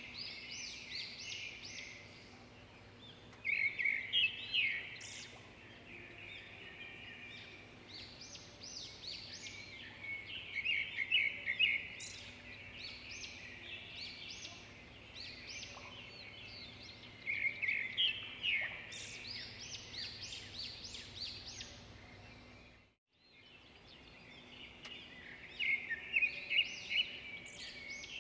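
Small birds chirping in repeated bursts of short, high calls, over a faint steady low hum; the sound cuts out briefly about three-quarters of the way through.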